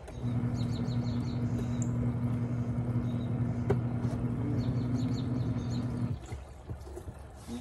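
Portable twin-tub washing machine's wash motor humming steadily as it agitates a rinse load. It starts just after the beginning and stops about six seconds in, the usual run-and-pause of the wash cycle, with birds chirping faintly behind it.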